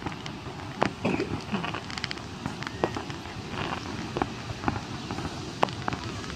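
Fireworks going off: scattered sharp pops and crackles at irregular intervals.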